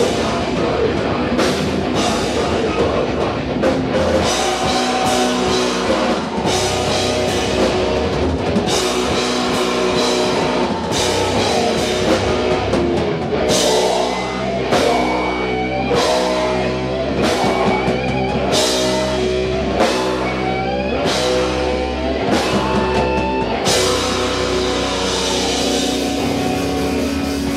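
Live rock band playing an instrumental passage: drum kit and electric guitar, with no singing.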